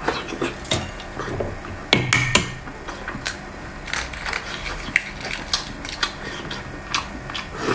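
Close-up eating sounds from eggs: irregular sharp clicks and crackles of shell and mouth noises, with a few louder snaps about two seconds in.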